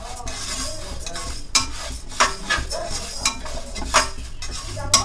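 A spatula stirring moong dal that is being dry-roasted in a pan: the grains rustle steadily, broken by about six sharp, irregular scrapes and clacks of the spatula against the pan. This is the roasting stage, where the dal is kept moving until it turns light brown.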